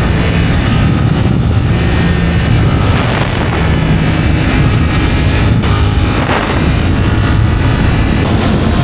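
Suzuki GSX-8R's 776 cc parallel-twin engine running steadily at a cruise of about 100 km/h. Heavy wind noise on the onboard microphone lies over it.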